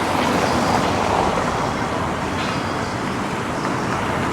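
Road traffic noise: a steady rush of passing vehicles, swelling slightly about a second in.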